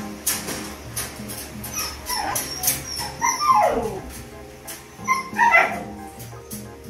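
Husky whining and yipping in a few falling cries, a cluster around two to four seconds in and another near five seconds, over background music.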